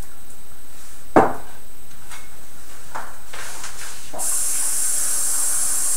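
A glass bottle set down on a wooden counter with a sharp knock about a second in. From about four seconds in, a kitchen tap runs in a steady hiss of water.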